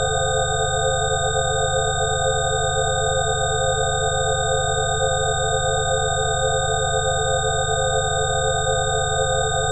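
Electronically generated 'healing frequency' drone: several pure sine tones held together over a low hum, unchanging with no attack or decay.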